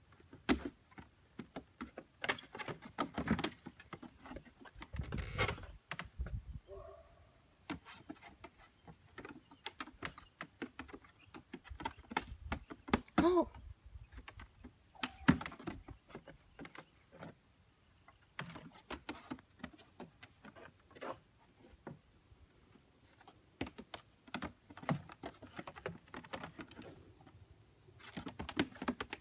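Goat hooves tapping and clattering on plywood boards and a wooden table top: irregular clicks and knocks as the goats walk and step about.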